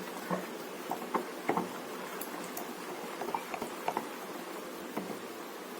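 Rice and bottle gourd dosa batter being stirred in a bowl: soft wet mixing with scattered light clicks and taps against the bowl.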